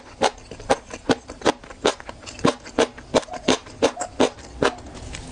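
A person chewing close to a clip-on microphone: a steady run of wet mouth smacks, about two to three a second.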